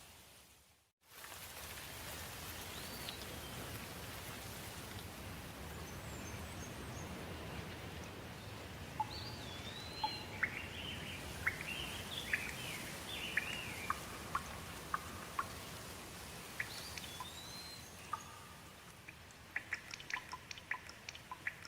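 Steady rain, with birds calling in short rising and falling chirps through the middle and a quick run of drips tapping near the end. The sound cuts out for a moment about a second in, then resumes.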